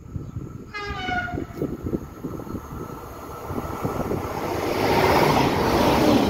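Regional TER train sounding a short horn blast about a second in, then its running noise building as it approaches and passes the platform at speed, loudest near the end.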